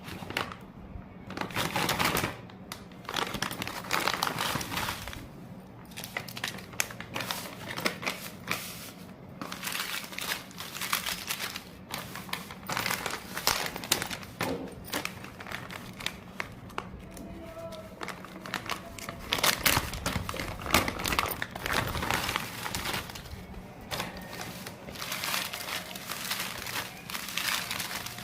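Plastic wrapper of a Cadbury Gems chocolate pack crinkling in irregular bursts as it is handled and opened.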